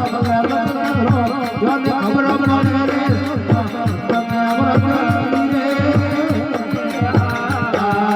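Rajasthani desi bhajan music in an instrumental stretch: a steady hand-drum beat under held melody notes.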